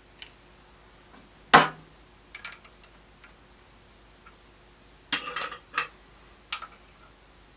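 A few separate metallic clicks and knocks as tools and machine parts are handled at the drill press, the loudest knock about one and a half seconds in and a quick cluster of clinks about five seconds in.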